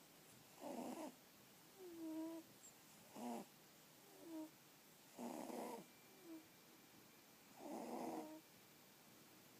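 Sleeping pixiebob cats snoring: a raspy snore about every two and a half seconds, four in all, with short whistling squeaks between the snores.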